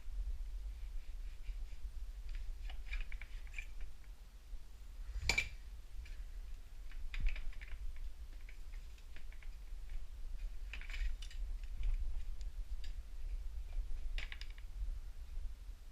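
Scattered light clicks and taps from handling tools and parts, in small clusters, with one sharper click about five seconds in, over a low steady hum.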